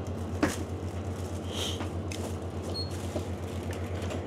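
Checkout at a convenience-store till: a sharp knock about half a second in, then short high beeps from a handheld barcode scanner as items are scanned, over a steady low hum.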